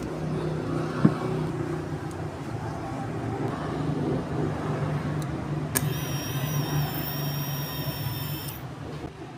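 A motorcycle electric starter motor wired straight to a small motorcycle battery spins up with a high whine for about three seconds, starting and stopping abruptly as the wire is touched on and taken off the terminal. A steady low hum runs underneath, with a sharp click about a second in.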